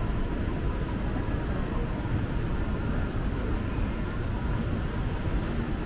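Steady low rumble of indoor shopping-mall ambience, continuous and even, with no distinct events.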